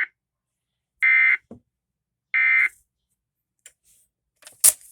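NOAA Weather Radio SAME end-of-message data bursts: short, identical buzzy digital tone bursts. The tail of one comes right at the start, then two more follow about 1.3 seconds apart, marking the end of the broadcast. Near the end come a few clicks and a sharp crackle.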